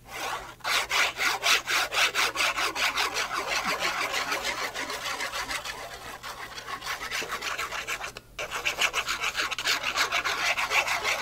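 Applicator tip of a glue bottle scrubbed quickly back and forth over paper, a scratchy rubbing at about five strokes a second, with a short break a little after eight seconds in.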